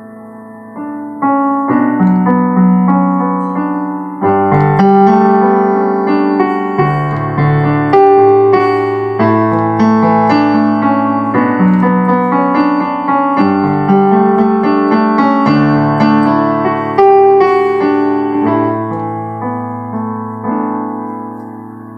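Yamaha PSR-EW310 portable keyboard playing its Concert Grand Piano voice: chords over a held bass line, each note struck and decaying like a piano. The playing starts about a second in and dies away near the end.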